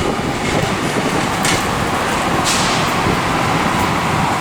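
Street traffic noise: a steady rumble of passing vehicles, with two short hisses about a second apart near the middle.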